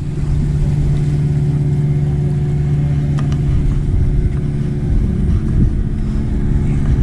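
Steady drone of a boat engine held at one unchanging pitch, over low wind rumble on the microphone.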